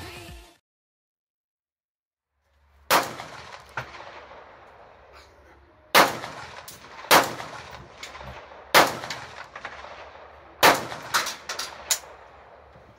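Kalashnikov AK-47 rifle firing single shots, about a second or two apart, then three or four in quicker succession near the end, each shot with a short echo trailing off.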